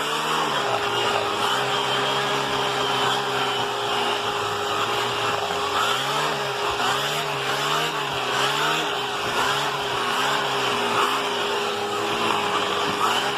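Vacuum cleaner running with an air-driven turbo brush being worked over a bed. A steady motor whine sits over a lower hum that rises and falls in pitch about once a second, most clearly from around six seconds in.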